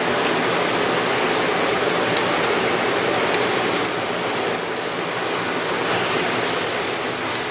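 Steady rushing noise like a fan or moving air, easing a little in the second half, with a few faint light clicks.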